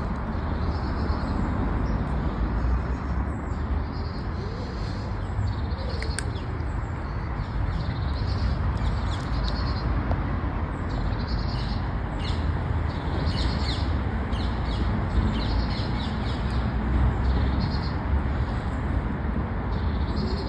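Small birds chirping in many short, high calls, more often in the second half, over a steady low outdoor rumble.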